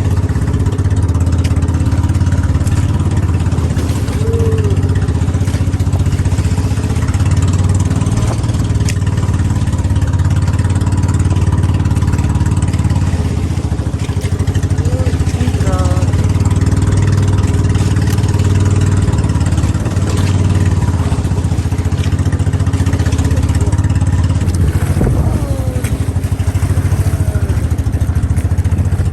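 A vehicle engine running steadily with a continuous low hum.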